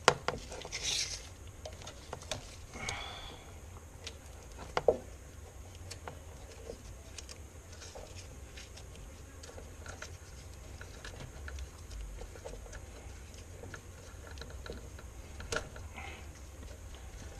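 Quiet, scattered clicks and rustles of hand work on car door wiring and electrical tape, with one sharper click about five seconds in, over a steady low hum.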